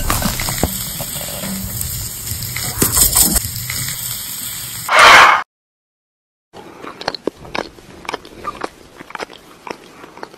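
Kitchen cooking sounds: a steady sizzling hiss with scattered pops, ending in a loud burst about five seconds in. After a sudden cut to silence, quieter scattered crackles and clicks follow.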